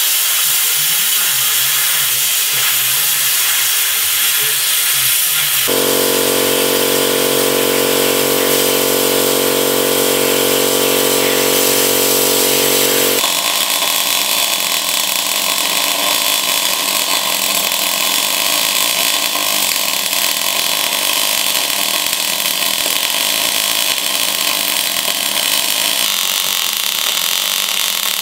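Plasma cutter hissing as it cuts steel plate. From about six to thirteen seconds a steady machine hum with a fixed pitch takes over. Then a MIG welder runs continuously as a steel bracket is welded onto an axle housing.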